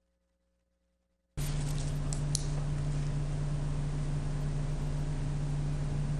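Near silence, then about a second in the sound cuts in abruptly to a steady electrical hum with hiss, the room microphone feed coming live, with a few faint clicks just after it starts.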